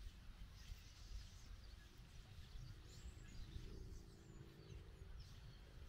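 Faint outdoor ambience: wind rumbling low on the microphone, with a few faint bird chirps in the middle.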